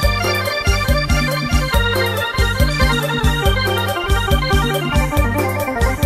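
Background music with a steady beat and held keyboard chords.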